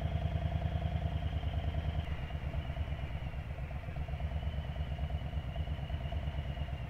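Harley-Davidson Road Glide's V-twin engine running steadily at low revs in slow traffic, with an even low pulse and no revving.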